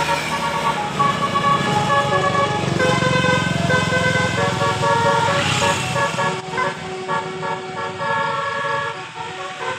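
Bus telolet horn playing a tune, a run of horn tones changing pitch in steps, over the bus engine running.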